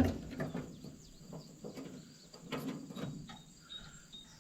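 Scattered light clinks and rattles of a hay baler's metal roller chain being handled and fitted around its sprocket and idler, with insects chirring steadily and a bird chirping briefly near the end.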